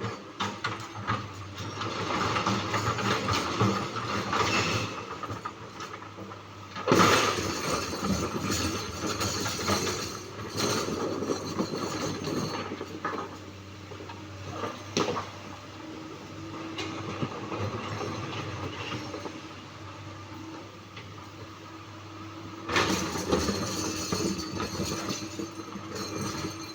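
Komatsu PC 200-8 excavator's six-cylinder diesel running under load, with the hydraulics working, and a few sharp knocks of rock, the loudest about seven seconds in.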